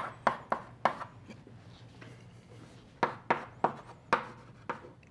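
Chalk tapping on a blackboard while equations are written: a quick run of sharp taps, a pause of about two seconds, then another run of taps.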